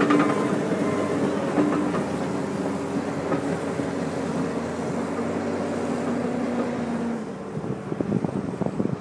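John Deere 750J crawler dozer's diesel engine running steadily under load, with its backup alarm beeping through the first second. A little after seven seconds in the engine note drops and irregular knocks and clanks come through.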